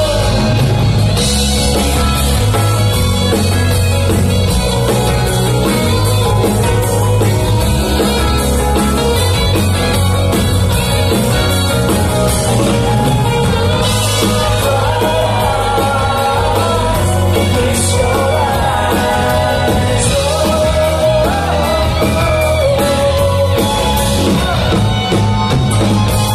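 Live city-pop band playing: lead vocal over acoustic guitar, electric bass, electric guitar and a steady drum beat, heard in a small club from among the crowd.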